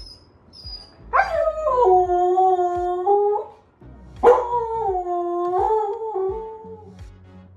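Siberian husky howling twice, two long howls that each start high, slide down and then hold steady. It is the crying he does when left home alone.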